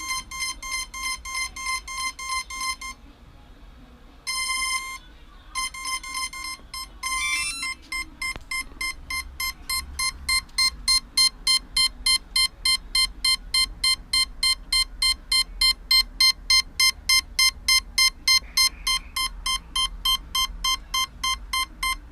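Short electronic beeps at one pitch from a Quantum Nova quadcopter's electronic speed controller, repeating about two and a half times a second, with a pause about three seconds in and a short rising run of tones about seven seconds in, then steady repeated beeping. One ESC keeps beeping and the quadcopter does not respond to the radio sticks.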